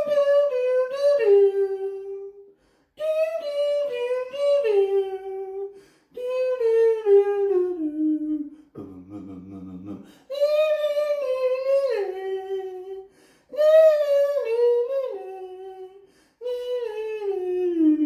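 A man hums or sings a wordless tune in six phrases of two to three seconds each, with short breaks. Each phrase steps down in pitch, and the last one slides down steeply. A quieter, much lower vocal sound comes between the third and fourth phrases.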